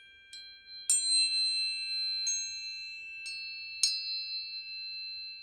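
Tuning forks struck one after another, about five strikes, each leaving high, pure, steady tones ringing and overlapping with the earlier ones in a sound-healing sound bath.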